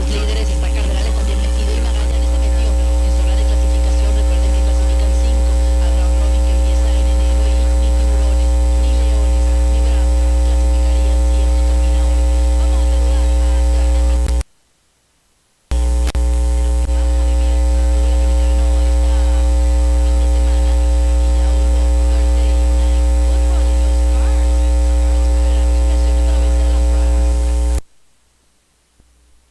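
Loud steady mains hum with static from a 3.5 mm cable held half-plugged into a laptop's microphone jack, the unshielded cable acting as an antenna. A faint radio broadcast it picks up wavers underneath. The hum cuts out for about a second midway, comes back, and stops shortly before the end.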